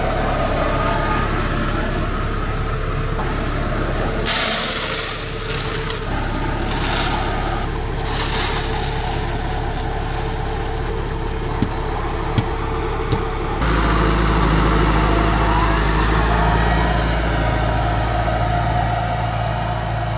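Tractor diesel engine running steadily at idle while maize seed is poured from a sack into a planter's plastic seed hopper, a rush of pouring seed for a few seconds about four seconds in and again a little later. From about 13 seconds in the engine is louder and lower.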